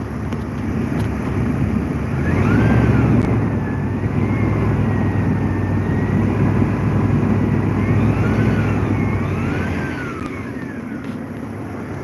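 Engine running with a thin, high alternator whine. The engine speeds up about two seconds in and settles back near ten seconds, and the whine rises and falls with it. The mechanic calls this whine the classic sign of a failing alternator and suspects its diodes have gone.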